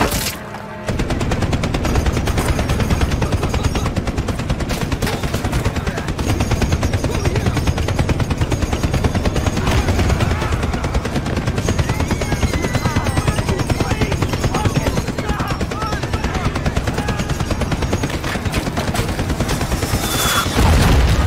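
Sustained rapid machine-gun and rifle fire, a dense battle barrage with explosions, after a brief lull just at the start; a loud blast near the end is the loudest moment.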